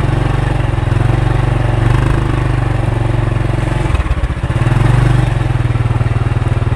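A small engine running steadily nearby, a loud low hum with a fast even pulse.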